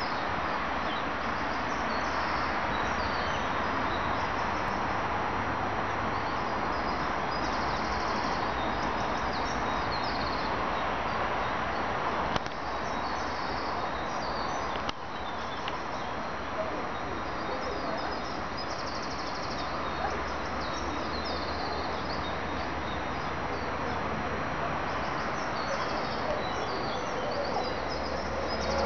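Small birds chirping and singing in short, high phrases over a steady rushing background noise.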